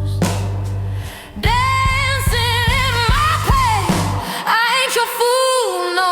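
Slow blues ballad music with a high melody line held with vibrato over bass and drums; the bass drops out for about two seconds near the end.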